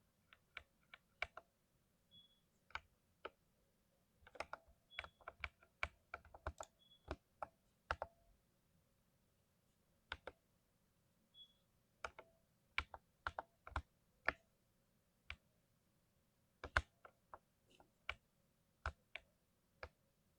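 Keystrokes on a 60% mechanical keyboard with lubed switches, typed at an uneven pace. Single clicks and short quick runs of keys are broken by pauses.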